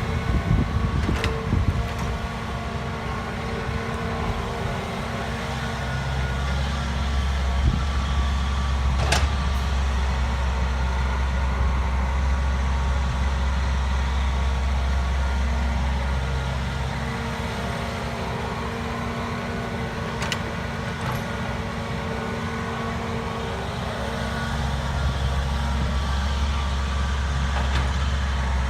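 Hitachi EX120 hydraulic excavator's diesel engine running steadily, its low drone swelling twice for several seconds at a time as the machine works, with a steady whine above it and a few sharp knocks.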